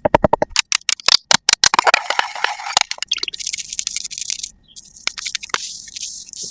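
ASMR makeup sounds: a fast run of sharp taps and clicks, then scraping and a high brushing hiss, with more taps over the brushing near the end.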